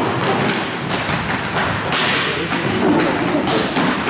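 Inline roller hockey play in a large sports hall: a steady noise of skate wheels on the court floor, broken by sharp knocks of sticks, ball and boards, one of them about two seconds in and another near the end.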